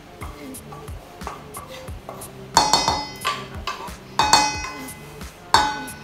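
A wooden spatula scraping thick spice paste out of a pan into a stainless steel bowl, with several sharp clanks of metal that ring on briefly, bunched in the second half. Soft background music runs underneath.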